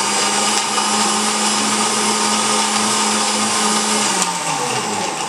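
Electric mixer-grinder blending milk with coffee, sugar and ice cubes, its motor running steadily. About four seconds in it is switched off and winds down, falling in pitch.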